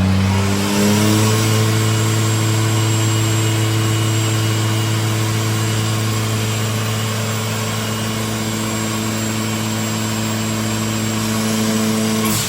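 Rebuilt Toyota Starlet Glanza 1.3 L turbocharged four-cylinder (4E-FTE) engine running. Its pitch rises over the first second, then it holds a steady raised speed until it drops near the end.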